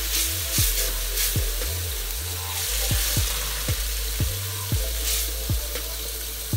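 Gravy sizzling in a stainless steel skillet as a silicone spatula stirs and scrapes through it, over background music with a deep, thumping bass beat.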